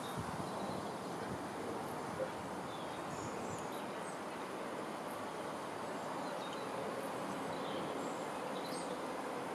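Steady outdoor rushing background with small birds chirping faintly now and then.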